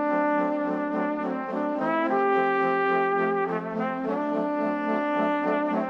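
Background music: slow sustained chords over a steady low note, changing every second or two.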